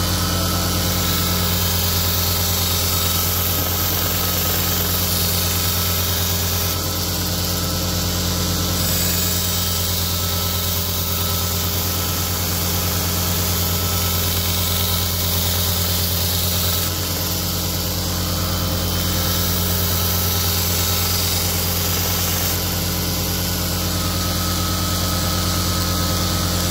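Electric bench grinder motor running with a steady hum, while a D2 steel bowie knife blade is ground on its wheel, giving a steady hiss that shifts a few times as the blade is moved.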